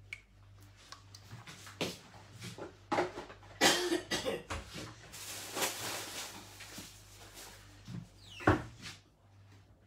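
Kitchen handling noises: a run of knocks and clatters from containers, lids or cupboard doors, with a longer rustling stretch in the middle and a sharp knock near the end. A low steady hum sits underneath.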